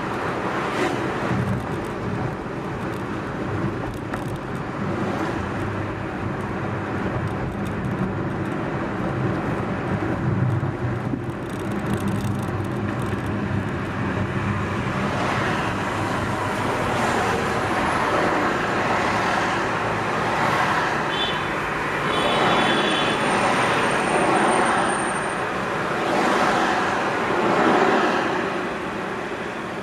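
Car engine and tyre noise heard from inside a moving car, with the surrounding traffic swelling and fading as vehicles pass. The car slows to a stop at a red light, and the noise drops near the end.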